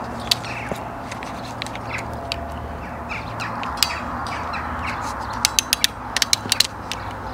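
Ratchet hand crimping tool clicking as its jaws are squeezed down onto a cable lug: single sharp clicks at first, then a quick run of about eight clicks near the end as the ratchet closes.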